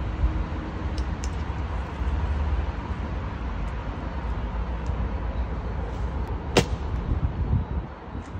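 Platform boot stomping on small oranges on a concrete floor: a couple of faint taps about a second in and one sharp tap about two-thirds of the way through, over a steady low rumble.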